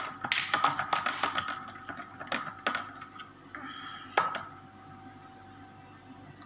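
Phillips screwdriver used as a spoon, its metal shaft clicking irregularly against the inside of a plastic cup as coffee is stirred; the clicks thin out after about three seconds, and a single sharper knock comes a little after four seconds.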